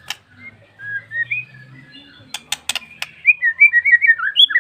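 A prinia (prenjak) singing in short, quick chirping and twittering notes, with a few sharp clicks around the middle and a faster, louder run of chirps in the second half.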